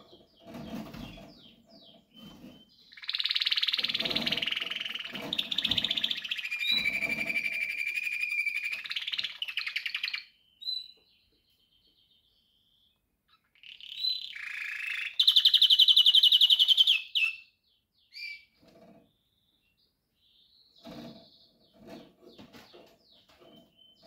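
Canary singing: a long warbling phrase of trills and sweeps lasting several seconds, a pause of a few seconds, then a second phrase that ends in a loud, very fast trill.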